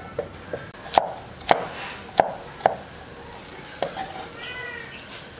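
Knife chopping on a wooden board: five sharp, uneven chops in the first four seconds, then a short pitched call near the end.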